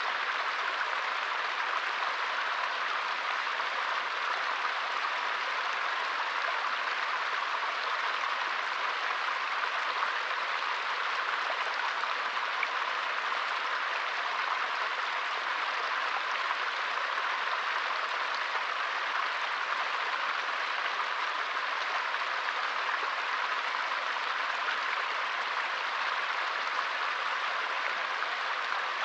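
Small forest stream flowing over stones: a steady, even babble of running water.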